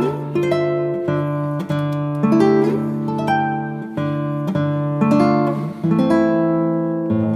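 Background music: acoustic guitar picking a slow melody with held bass notes.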